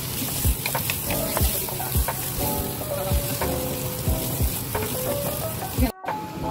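Diced bell peppers and grated cabbage sizzling in hot oil in a nonstick wok, stirred with a wooden spatula that scrapes and knocks against the pan about twice a second. The sound cuts off abruptly near the end.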